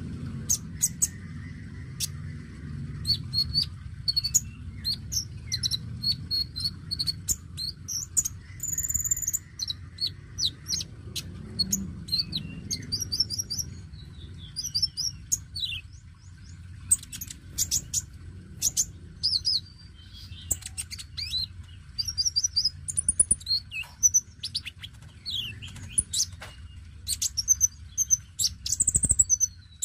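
Caged male van Hasselt's sunbird (kolibri konin) singing busily: rapid high chirps and twittering trills with short gaps, mixed with sharp clicks, over a steady low hum.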